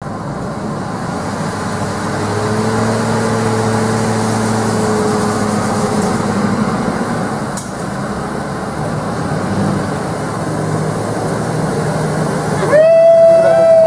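Jeep Cherokee XJ's engine running steadily as it wades through deep water, with a constant wash of water noise. Near the end a loud held pitched note starts suddenly and slides slowly lower.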